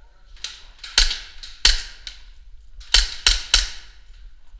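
Airsoft pistol shots: about six sharp cracks, three spread over the first two seconds, then a quick run of three about three seconds in. Each shot rings briefly off the bare walls of the corridor.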